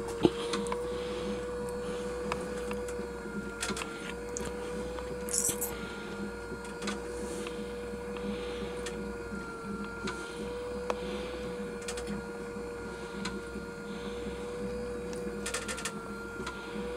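Stuart Major model beam engine running, with a steady whine and a regular mechanical clatter with light clicks. The noises come from its parts being only loosely assembled.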